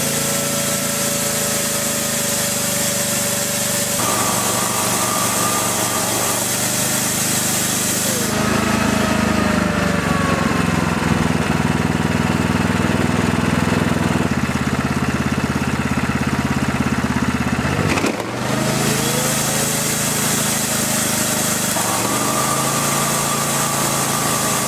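Briggs & Stratton Q6500 inverter generator's 306cc four-stroke engine running under load in QPT mode, its speed stepping up and down several times as the load changes. A shop vacuum runs with a whine and air rush, shuts off about eight seconds in and winds down. A heavier, lower running sound carries on until about eighteen seconds in and stops abruptly, and then the vacuum spins up again.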